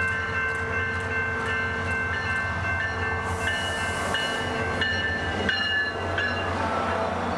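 SunRail commuter train, an MP32PH-Q diesel locomotive and bilevel coaches, passing close by: a steady engine hum, wheels clicking over rail joints, and steady high squealing tones from the wheels. A brief hiss comes about three seconds in.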